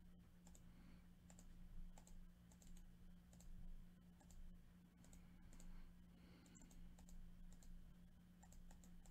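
Faint, scattered clicks of a computer mouse and keyboard, irregularly spaced, over a steady low hum.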